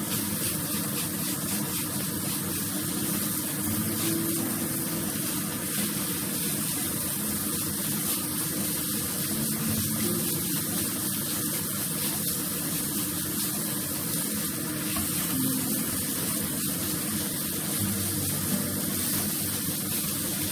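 Ground pork sizzling steadily in a nonstick frying pan as a wooden spatula stirs and breaks it up.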